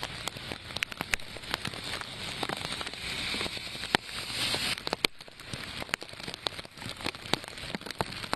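Rain falling, a dense hiss with many sharp individual drop impacts close by. The hiss swells for a moment just past the middle, then breaks off briefly and resumes, as at a change of shot.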